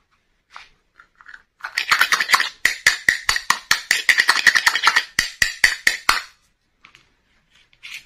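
Small plastic toy frying pan and its lid knocking and scraping together: a quick, dense run of light clicks lasting about four seconds, starting just under two seconds in.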